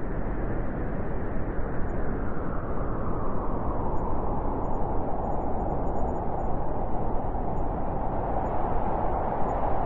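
Steady hiss of static from a weather radio receiver, loudest in the middle range, with no alert tones or voice.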